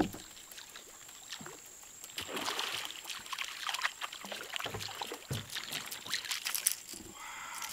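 Water splashing and sloshing close to a small boat's bow as a fishing line is worked in through it, with many small crackling clicks. A single sharp knock, the loudest sound, comes right at the start.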